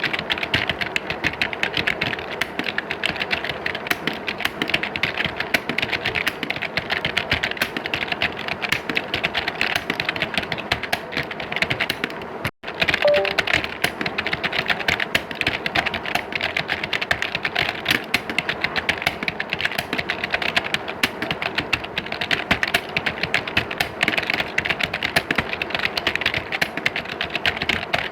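Many computer keyboards being typed on at once, as in an exam hall: a dense, continuous clatter of key clicks. It drops out for an instant about twelve seconds in.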